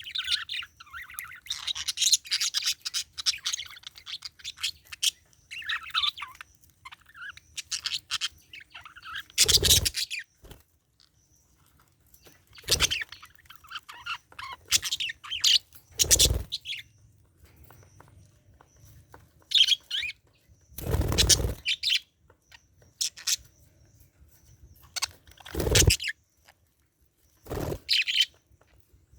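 Budgerigar chattering and warbling in bursts of rapid high twittering with pauses between, broken by about six short, louder noisy sounds.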